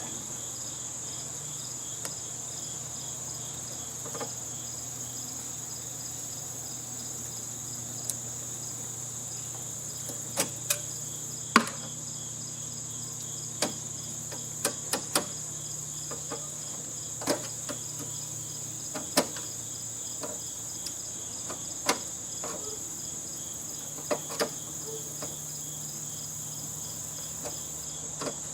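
Crickets trill steadily and high-pitched throughout. Over them come scattered sharp knocks and clanks, about fifteen at irregular intervals, from hand tools on the metal of the heating and A/C units being dismantled.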